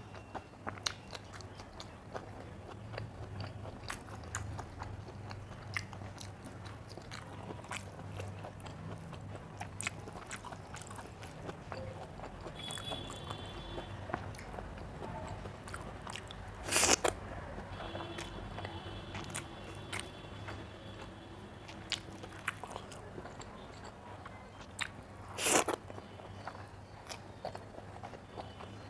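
Close-miked eating: steady chewing and biting, with many small wet mouth clicks and crunches, over a low steady hum. Two much louder sharp crunches or clatters stand out, about two-thirds of the way in and again near the end.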